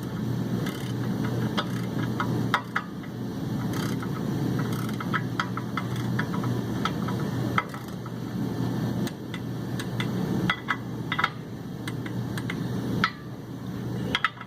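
Irregular wrench clicks and metal clinks as the bolts holding a clutch pressure plate to the flywheel are tightened and gone over again, over a steady low hum.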